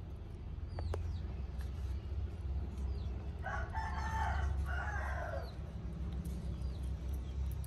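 A rooster crowing once in the middle, a call of about two seconds in two parts, over a steady low rumble.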